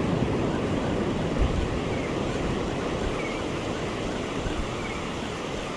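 Ocean surf breaking and washing up a sandy beach, a steady rush.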